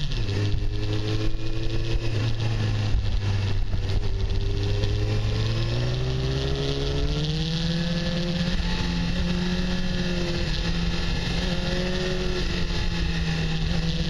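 Honda CBR600 sport bike's inline-four engine running under way, heard from on board with wind rushing past; the revs climb about halfway through and then hold steady at the higher pitch.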